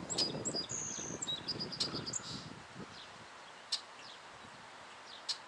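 Several small birds chirping and whistling, with two sharp high chips later on, over a low rumbling noise that fades out about three seconds in.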